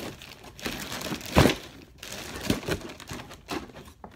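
Clear plastic parts bag from a model kit crinkling as it is handled over a cardboard box, in a series of rustles, the loudest about a second and a half in.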